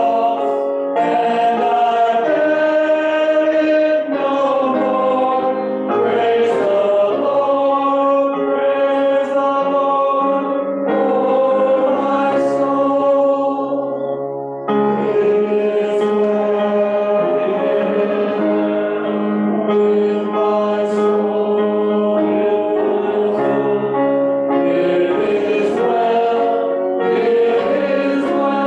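Church congregation singing a hymn together in slow, long held notes, phrase by phrase, with short breaks between the phrases.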